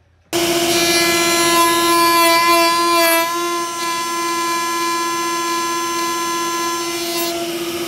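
Makita RP2301FC router in a benchtop router table, running at speed with a steady high whine while its dovetail bit cuts half-blind dovetail sockets in a pine board. The whine starts abruptly, is louder and wavering through the first few seconds, and dips briefly in pitch about three seconds in as the cut loads the bit, then runs steady.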